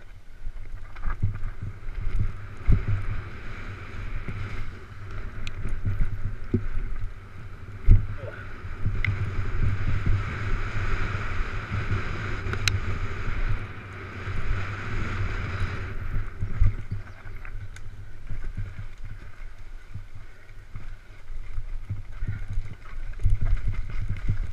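Wind rumbling on the camera microphone while a mountain bike is ridden fast down a rough dirt trail, its frame and tyres rattling, with frequent knocks over bumps, the loudest about 8 seconds in. A steadier hiss runs from about 9 to 16 seconds.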